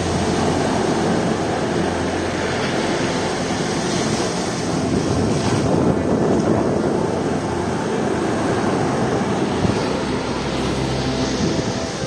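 Sea surf washing up a sandy beach among rocks: a steady rush of water, with the hiss of breaking foam swelling twice, about a third of the way in and near the end.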